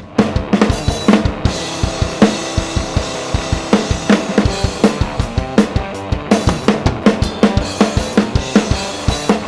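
Bass guitar distorted through a Fuzzrocious Heliotropic fuzz pedal, playing a heavy, sustained riff over a full drum kit keeping a steady rock beat with kick and snare.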